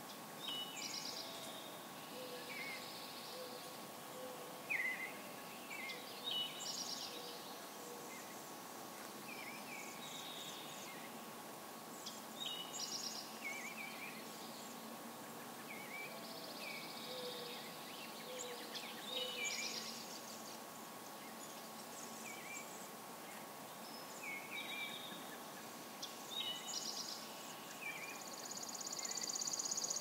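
Songbirds singing short, repeated phrases every couple of seconds over a faint steady outdoor background, with a few runs of low, soft cooing notes. A high, continuous insect trill starts near the end.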